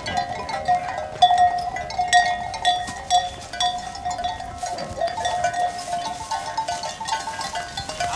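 Large bells on the collars of grazing sheep clanking and ringing as the animals move, many bell notes jangling over one another without a break.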